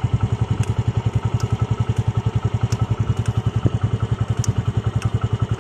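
TVS Radeon's small single-cylinder four-stroke engine idling steadily, its exhaust beating evenly at about a dozen pulses a second.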